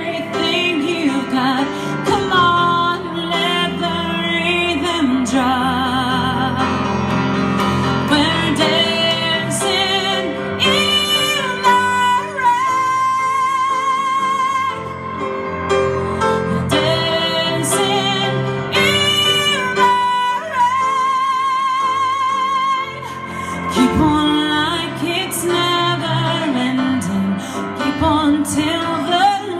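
A female pop singer singing live over a band. She holds long wavering high notes with vibrato, two of them near the middle.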